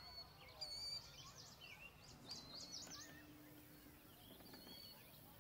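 Faint outdoor ambience with distant small birds calling: a few short chirps and whistled notes, most of them in the first three seconds or so, over a soft steady hiss.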